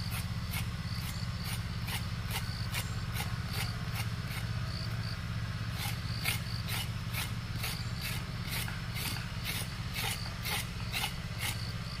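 Repeated scraping or rasping strokes, about two a second, over a steady low hum.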